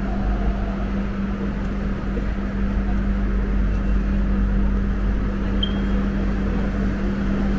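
Steady hum and rumble inside an LRT Jabodetabek light-rail car, with a constant low drone from the train's equipment. A brief high chirp sounds about two-thirds of the way through.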